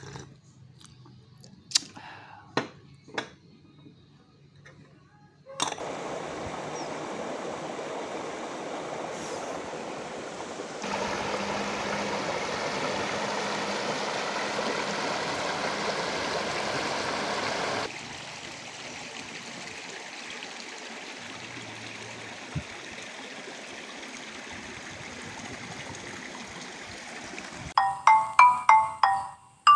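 A few sharp clicks, then a stream's running water as a steady rush, louder for several seconds in the middle with abrupt changes in level. Near the end, light mallet-percussion music with quick plucked notes comes in.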